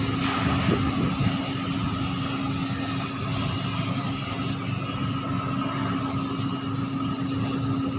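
Crawler crane diesel engines running steadily under load, a constant drone with a steady hum.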